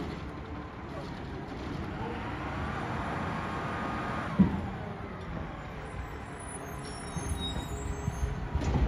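Mack MRU recycling truck with a McNeilus ZR automated side-loader body working a collection stop: engine and hydraulics running as the lifting arm retracts, the truck pulls ahead and the arm reaches out for the next cart. A whine rises and holds for a second or two mid-way, a single sharp thump comes about four and a half seconds in, and knocks pick up near the end as the arm reaches for the next cart.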